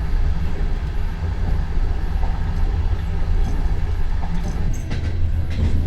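Steady low rumble of a passenger train running, heard from inside a sleeper compartment, with a few faint clicks near the end.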